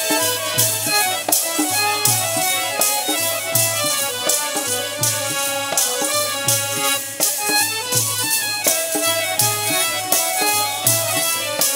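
Instrumental interlude of Punjabi devotional music: a harmonium plays the melody over a dholak drum beat, with chimtas (iron tongs with jingles) clashing on a steady beat.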